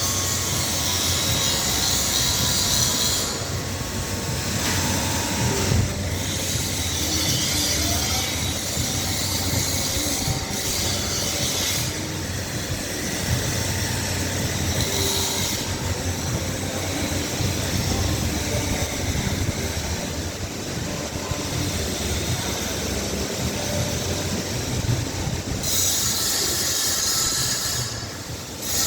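Continuous machine noise with a steady low rumble and a hissing, squealing upper layer that stops and restarts several times.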